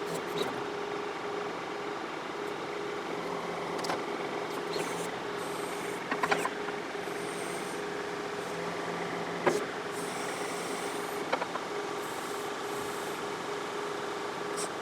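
John Deere 4052R tractor's diesel engine running steadily under backhoe work, with a few sharp knocks and clunks from the digging, the loudest about six and nine and a half seconds in.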